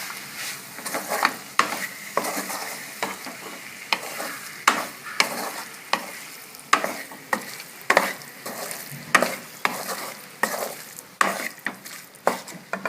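Chicken pieces being stirred in a frying pan with onions and ground pepper: irregular scrapes and knocks of the spoon against the pan, about one or two a second, over a faint sizzle.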